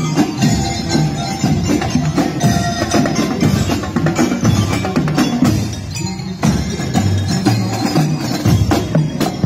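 Marching drum-and-lyre band playing on the march: mallet-struck bell lyres ring out a tune over a steady beat of marching drums.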